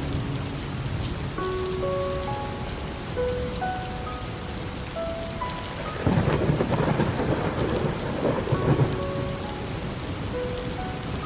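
Steady rain falling, with a roll of thunder that swells about halfway through and fades over some three seconds.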